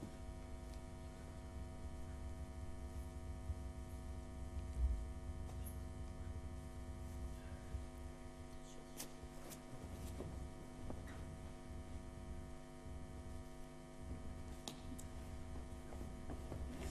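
Steady electrical mains hum with a low rumble underneath, and a few faint clicks.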